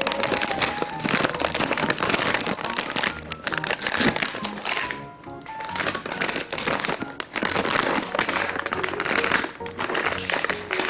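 Plastic snack pouch crinkling and rustling as it is handled, over background music.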